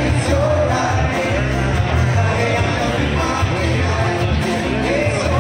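A live band playing loud amplified music through a PA. Electric and acoustic guitars, bass guitar and drums play under a melody line, with a strong, steady bass.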